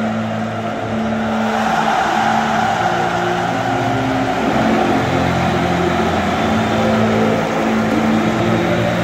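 A large stadium crowd and the players cheering and shouting loudly at a trophy celebration, over music with held notes that change pitch every half second or so.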